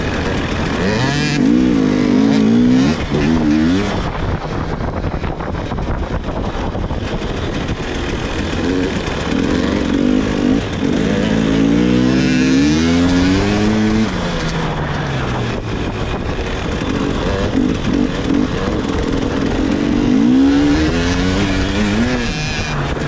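Two-stroke 300 cc enduro motorcycle engines revving hard as the bikes ride, the pitch climbing and falling in repeated sweeps as the throttle is opened and shut, three main climbs across the stretch.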